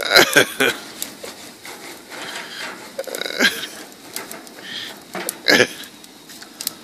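A man's voice in short wordless vocal bursts, three of them: at the start, about three and a half seconds in, and about five and a half seconds in.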